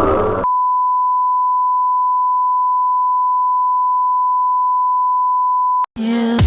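Electronic beep: a single pure, unwavering tone near 1 kHz held for about five seconds and then cut off abruptly, with nothing else under it. Electronic dance music with a heavy beat comes in near the end.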